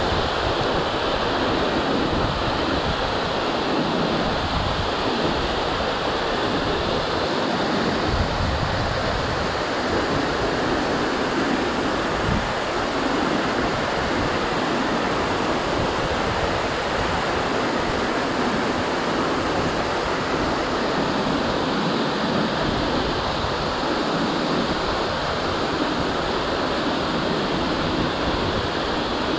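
Waterfall plunging down a rock cliff straight into the sea: a steady, unbroken rush of falling water.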